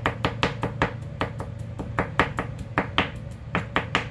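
Chef's knife chopping fast on a plastic cutting board, mincing garlic: a quick, irregular run of sharp knocks, about four a second.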